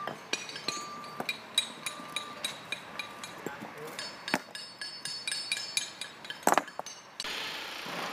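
Stone-setting hammers tapping cobblestones into place, several workers at once: a stream of irregular sharp clinks of steel on stone, some ringing briefly. A short repeated beep sounds in the background during the first two seconds, and the tapping cuts off abruptly near the end.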